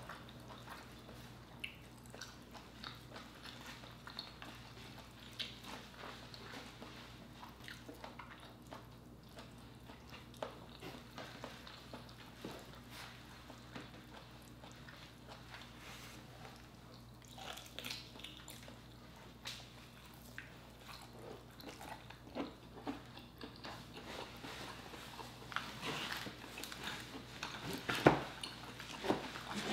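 Quiet eating sounds of lobster tail meat being pulled apart, dipped in sauce and chewed: soft mouth smacks and small scattered clicks, with one sharper click near the end.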